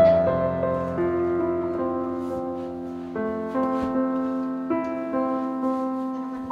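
Background piano music: gentle notes and chords struck every half second or so and left to ring and fade.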